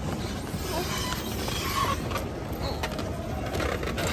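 Airport baggage carousel running: a steady low mechanical rumble, with faint distant voices in the hall.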